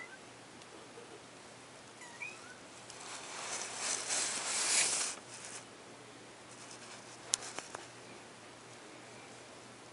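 Close rustling and scuffling of a young tabby kitten moving against the microphone, loudest about three to five seconds in. A couple of faint, high, squeaky kitten mews come at the start and about two seconds in, and a sharp click sounds about seven seconds in.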